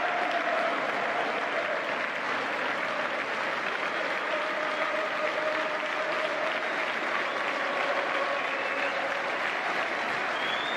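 Large stadium crowd of football supporters applauding, a steady dense clapping.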